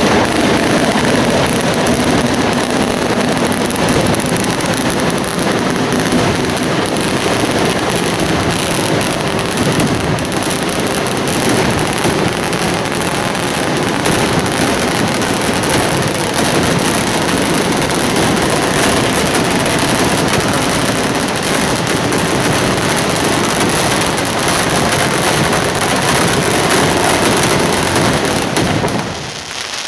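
Mascoli, small iron mortars charged with black powder, firing in a rapid chain of loud bangs so close together that they run into one continuous crackling din. The firing thins out briefly near the end.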